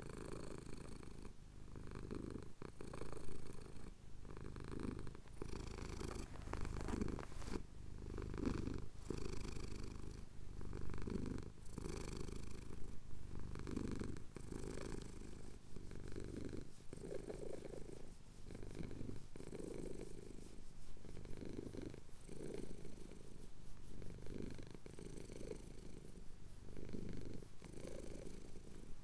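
Domestic cat purring as it has its chin scratched, the purr swelling and fading in a steady rhythm about every second or so with its breathing.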